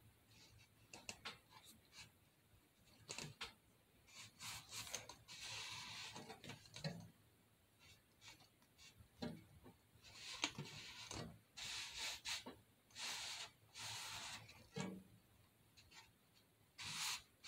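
Hands rubbing and smoothing a paper picture onto a painted metal can: faint, on-and-off rubbing and rustling of paper, with small taps and clicks in between.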